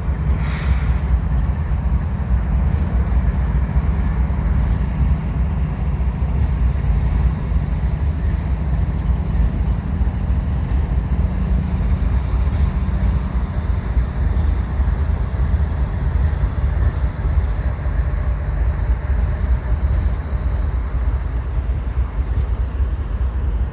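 GE ES44AC diesel-electric freight locomotives, with their twelve-cylinder GEVO engines, working hard as they accelerate a freight train, a steady low diesel rumble.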